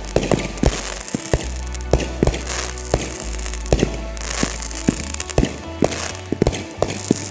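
Background music with a steady bass line, over many sharp, irregular cracks and pops of consumer fireworks going off.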